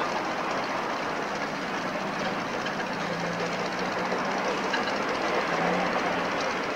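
Narrow-gauge steam locomotive venting steam, a steady rushing hiss, with a faint low hum joining about three seconds in.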